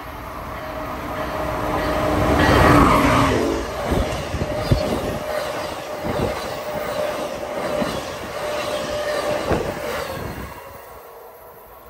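Amtrak passenger train passing at speed close by. The sound builds to a loud rush as the head end goes by about three seconds in, then the stainless-steel cars rumble past with a string of sharp wheel knocks. It fades away near the end.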